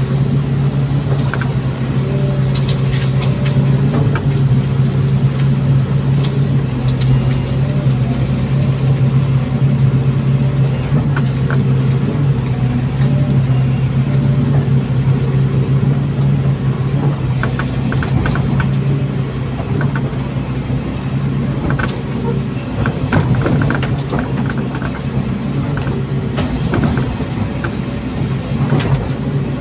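Excavator's diesel engine running steadily under load, heard from inside the cab, a strong low hum with higher tones that come and go as the arm works. Scattered knocks and clatter from the bucket digging and dumping soil, roots and stones, more frequent in the second half.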